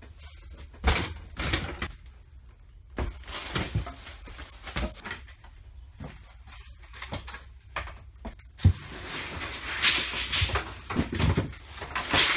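A series of knocks, clunks and scraping sounds, as of things being handled and moved about, with sharp knocks about a second in and near the nine-second mark.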